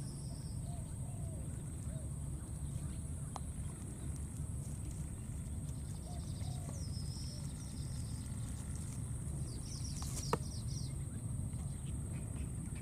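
Outdoor ambience with a steady low rumble and a thin, steady high whine. Short chirping animal calls come a few times, and there is a single sharp click about ten seconds in.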